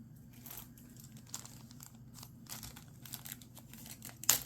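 Packaging crinkling and rustling in irregular small bursts as carded necklaces are handled, with a sharper click just after four seconds in.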